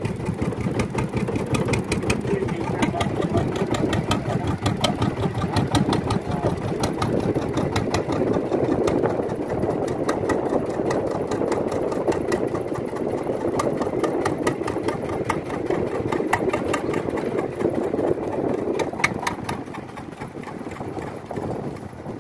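Boat engine running steadily with a fast, even chugging, easing off somewhat near the end.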